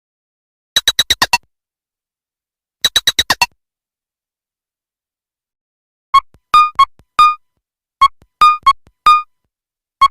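Nothing Phone (1) stock ringtones playing. First, two quick runs of about six glassy, clicking notes each; then, after a pause of about two and a half seconds, a different ringtone begins: short plucked synth notes in a four-note pattern that repeats about every two seconds.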